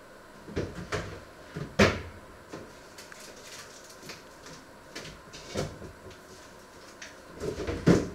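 Irregular knocks and clatters of things being handled in a kitchen, about half a dozen in all, the sharpest about two seconds in and again just before the end.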